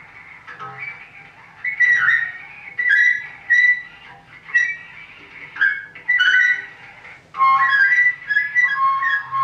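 Bass clarinet played solo high in its register: short, thin, very high notes in broken phrases separated by brief gaps, some gliding in pitch. The playing grows busier and more continuous near the end.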